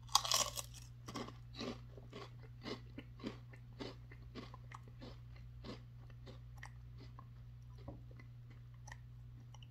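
A bite into a ridged Lay's Wavy potato chip, loud and crisp, then chewing with crunches about twice a second that grow fainter as the chip is chewed down.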